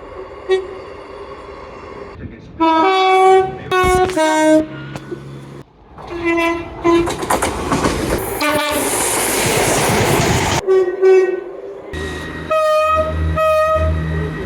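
A run of train horn blasts, long and short, from several trains edited one after another, each horn sounding a chord of several notes. Around the middle a loud rushing noise of a passing train swells up for a few seconds, and near the end a low steady rumble runs under two short blasts.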